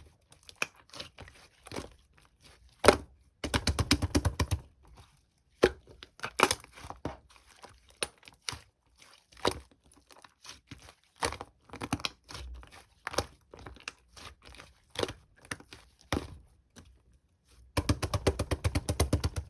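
Slime being squeezed, stretched and pressed by hand, making sticky clicks and small pops. Two spells of fast, even popping come about three and a half seconds in and again near the end.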